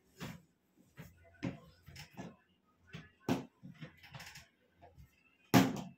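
Short knocks and clatter of household objects being handled, a few scattered small ones and a louder thump about five and a half seconds in.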